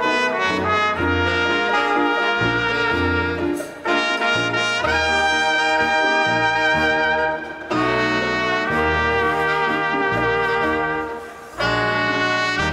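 Latin dance orchestra playing, with its trumpets and trombones carrying the melody in long held phrases over a steady bass, dipping briefly between phrases about every four seconds.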